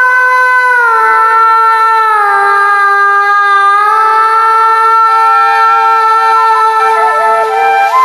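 Borgeet instrumental passage on bansuri flute and harmonium: long held notes that glide down a step about a second in and again a little after two seconds. Near the end a quick, ornamented flute phrase comes in.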